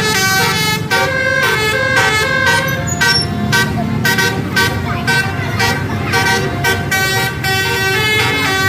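A bus's telolet horn, a set of tuned air horns, plays a quick melody of held notes one after another with short breaks between them. A bus engine runs underneath.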